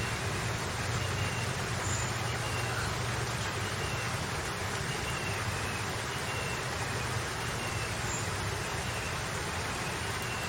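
Steady background noise with a low hum and faint short high chirps about once a second, like distant road traffic.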